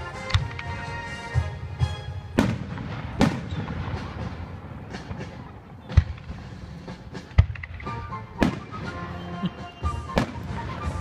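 Aerial fireworks shells bursting: a dozen or so sharp bangs at uneven intervals, the strongest about two and a half, three, six, eight and a half and ten seconds in.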